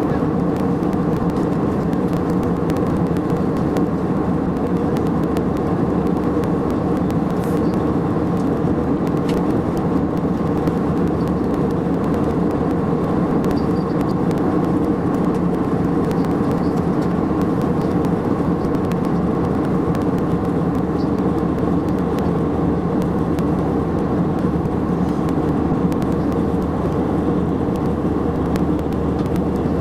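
Steady drone of a jet airliner in cruise flight, heard inside the passenger cabin: engine and airflow noise, even and unchanging throughout.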